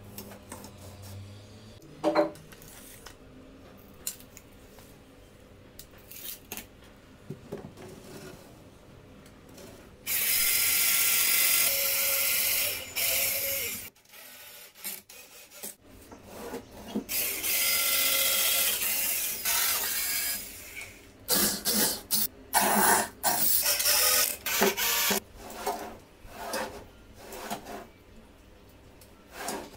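Power drill driving screws into laminated particleboard to fix a pull-out shelf to its metal drawer slides: two steady runs of about three seconds each, then several short bursts as the screws seat. Before them come light clicks and knocks from handling the boards and slides, with one sharp knock about two seconds in.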